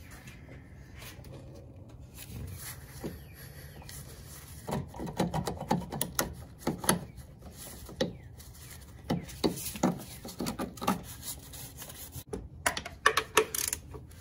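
Irregular light clicks and knocks of hands and tools working at the small nut on the AC line's support bracket, with a quick cluster of clicks near the end as the socket and extension are brought down onto it.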